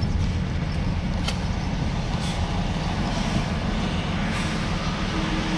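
Lorry engine running steadily at a low rumble, with road noise while driving.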